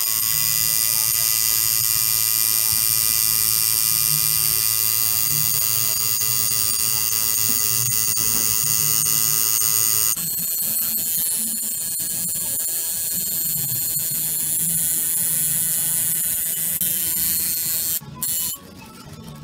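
Tattoo machine buzzing steadily as it works the skin, a high even whine that shifts slightly about halfway through and drops much quieter near the end.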